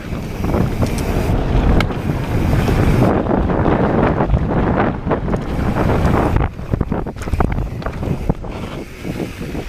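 Wind rushing over an action camera's microphone as a mountain bike descends a dirt trail, with tyres rumbling over the loose ground and sharp clicks and rattles from the bike, more of them in the second half.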